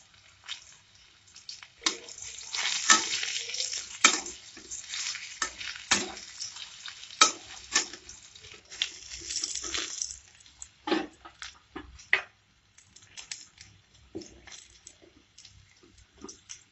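Raw banana slices frying in mustard oil in a kadai, sizzling while a spatula turns them, clicking and scraping against the pan. The sizzle dies down after about ten seconds, leaving scattered spatula clicks as the pieces are lifted out.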